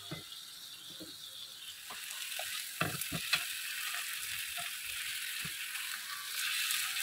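Marinated chicken leg pieces sizzling in hot oil in a frying pan over a high flame; the sizzle grows louder after about two seconds. A few sharp clicks of metal tongs against the pan come about three seconds in.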